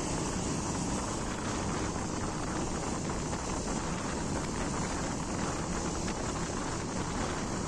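Wind rushing over the phone's microphone while a Bajaj Pulsar motorcycle is ridden at about 50 km/h, with the engine and road noise running steadily underneath.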